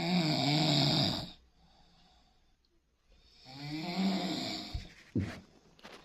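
A sleeping person snoring: two long snores about three seconds apart, with a short sharp breath sound near the end.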